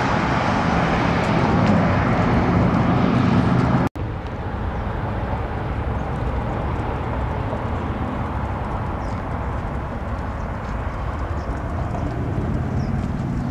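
Steady road traffic noise from a busy street, louder for about the first four seconds, then cut off abruptly and replaced by a quieter, steady traffic hum.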